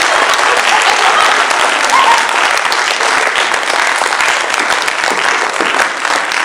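Audience applauding steadily, dense clapping with a few voices calling out in it.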